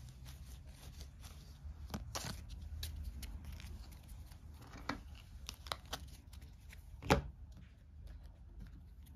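Cardboard game cards being handled and laid down on a cardboard game board: scattered light clicks and slides, with one sharper tap about seven seconds in, over a steady low hum.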